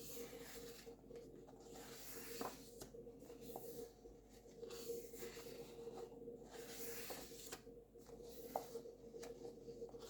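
Pages of a paperback colouring book being turned and handled, with faint, repeated rustling and brushing of paper and a few light taps, over a steady low electrical hum.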